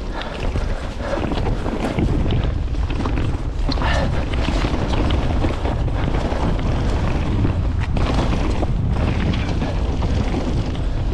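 Wind buffeting the microphone of a camera on a moving mountain bike, with the bike rattling and clattering over rough trail ground.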